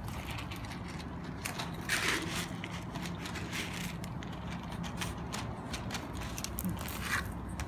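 Cats crunching dry kibble off a tiled floor: many short irregular clicks and crackles, over a low steady background rumble.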